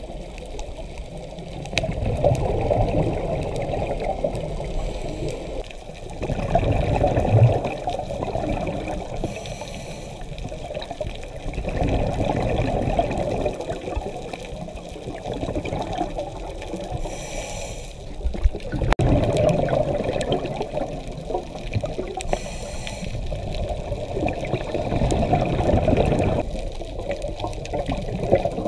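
A scuba diver breathing through a regulator underwater: slow, regular breaths, each exhale a long gurgle of rising bubbles lasting a few seconds, with a brief hiss of inhalation between some of them.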